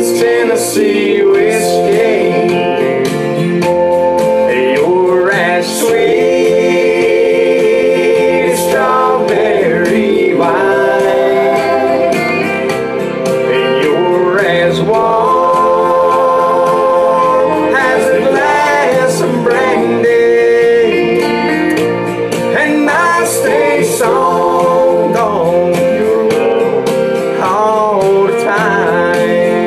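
A man singing a slow country ballad to his own guitar accompaniment, holding long notes with vibrato.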